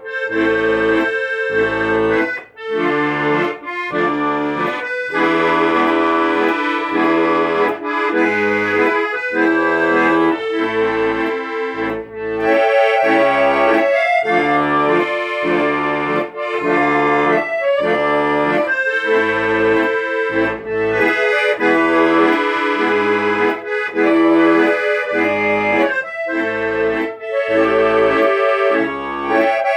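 Accordion playing an instrumental melody over a steady, rhythmic bass-and-chord accompaniment.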